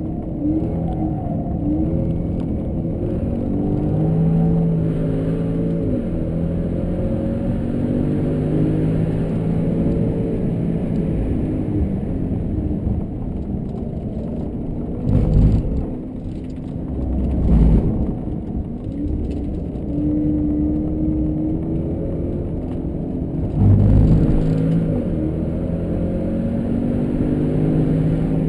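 Jaguar XFR-S's supercharged V8 at full effort, its pitch repeatedly climbing and dropping as it revs through the gears. Brief low thumps cut in three times: about halfway through, a couple of seconds later, and a few seconds before the end.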